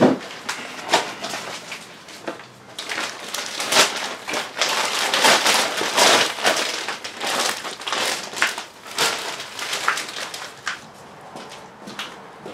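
Plastic trash bag being handled and opened, rustling and crinkling on and off, densest through the middle and thinning out near the end.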